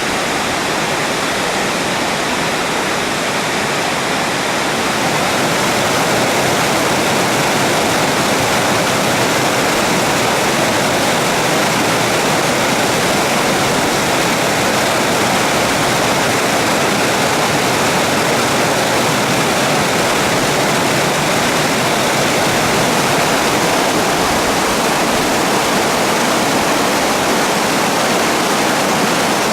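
Mountain waterfall and stream rushing: a steady, loud water noise, a little fuller from about five seconds in.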